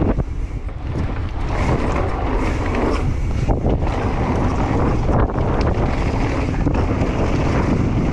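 Wind buffeting the microphone on a fast mountain-bike descent of a dirt trail, over a steady rumble of tyres on the ground and frequent short knocks and rattles from the bike over bumps.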